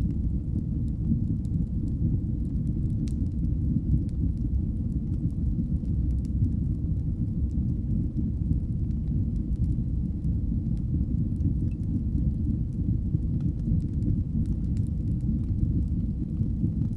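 Wood fire burning in a fireplace: a steady low rumble of the flames with sparse, faint crackles and pops scattered through it.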